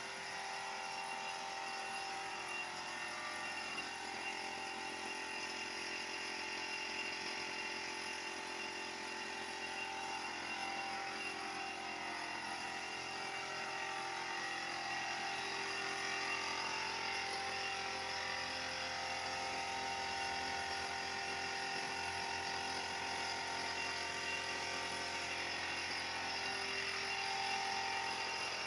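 Air-fed spray gun spraying a finish onto a wooden table: a steady hiss of air with a steady machine drone under it.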